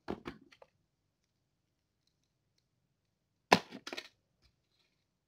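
Handling noise from a squishy toy and its tag being moved close to the microphone: a few soft knocks and rustles just after the start, then a sharper knock and a short rattle about three and a half seconds in.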